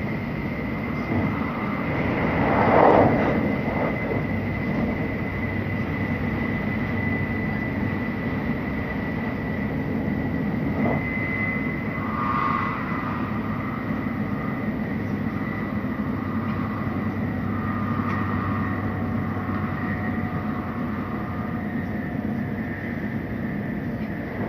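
Tokaido Shinkansen train running at speed, heard inside the passenger car: a steady rumble with a constant high whine, and a louder rush that swells and fades about three seconds in.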